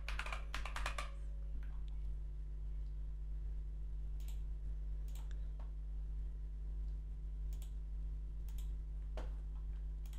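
Computer keyboard typing in a short quick run, then single mouse clicks spaced about a second apart as checkboxes are ticked, over a steady low hum.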